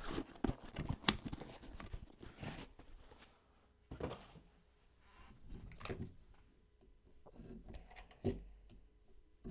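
Handling noise from hard plastic card cases and packaging: a few sharp clicks in the first second, then scattered short rustles and taps.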